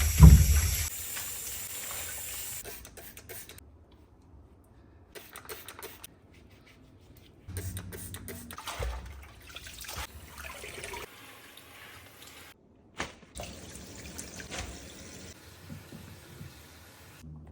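Liquid running and pouring in short stretches, with sharp knocks of containers being handled between them.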